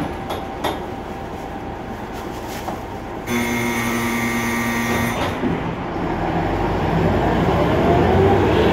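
Ikarus 280 bus interior: a steady electric buzzer sounds for about two seconds, then the diesel engine revs up and the bus pulls away, with a rising whine and a rumble that grows louder toward the end.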